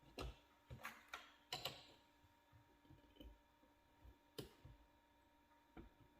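Light clicks and knocks of parts being fitted back onto a Wiz CG glass grinder as it is reassembled. Several come in the first two seconds, another about four and a half seconds in and a fainter one near the end.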